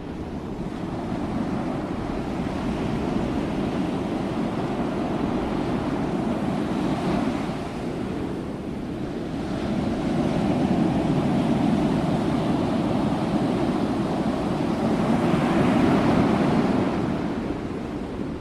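Ocean waves breaking and washing in, a continuous surf that swells and eases in slow surges, the biggest about three quarters of the way through.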